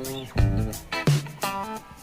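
Background music: plucked guitar notes over a bass line with a steady beat.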